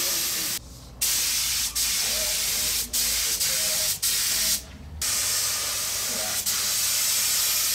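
Air-fed automotive spray gun hissing steadily while spraying epoxy primer onto a car body panel, cutting out twice for about half a second as the trigger is let go.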